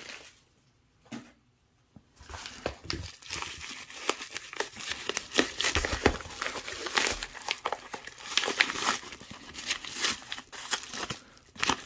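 A yellow padded mailer being crumpled and torn open by hand: continuous crinkling and crackling of the paper and its padding, starting about two seconds in and pausing briefly near the end.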